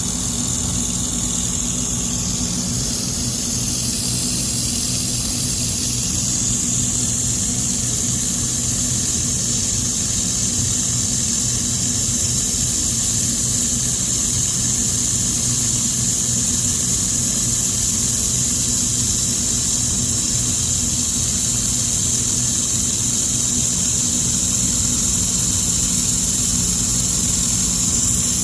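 Fiber laser welding machine running: a steady low hum with a strong high hiss that does not change.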